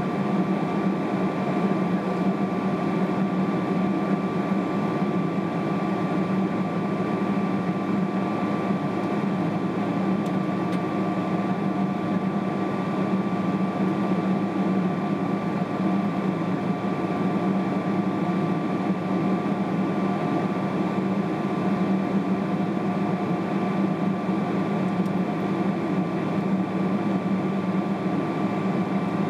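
Steady cabin drone inside a Boeing 777-300ER on the ground before takeoff: its GE90-115B engines running at low power together with the air-conditioning hum. A few constant tones sit over an even rumble, with no change in power.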